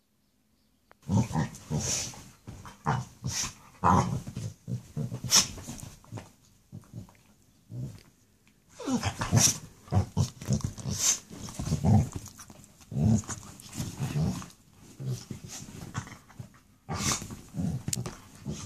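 Pit bull–type dog growling in rough bursts during a play-fight with a cat, with scuffling against the bedding. The growling starts about a second in and comes in irregular bursts.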